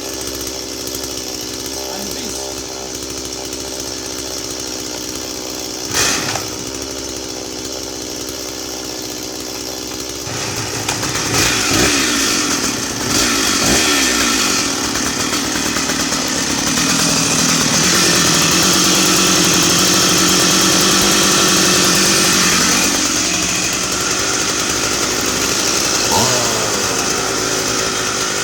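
Stihl two-stroke chainsaw engine running with the bar and chain removed, idling steadily with one sharp knock about six seconds in. About ten seconds in it is blipped up and down twice, then held at high revs for several seconds before dropping back toward idle, with one more short blip near the end.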